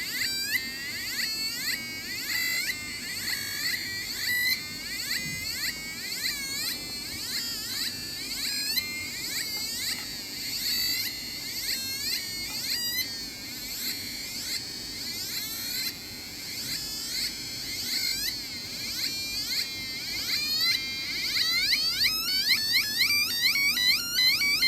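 Home-built electronic sound-effects generator circuit putting out a stream of synthetic chirps that swoop up and down in pitch, several a second. The chirps change pace throughout and come faster near the end.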